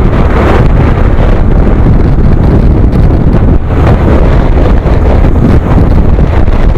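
Heavy wind buffeting the camera's microphone on a moving motorcycle, a loud, dense rumble that drowns out any engine sound.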